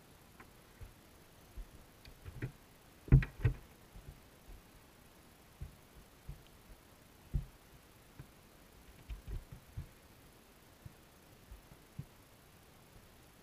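Irregular dull knocks and taps heard underwater through a camera housing inside a wire-mesh minnow trap, from rock bass and bluegill bumping the trap and camera. The two loudest knocks come close together about three seconds in.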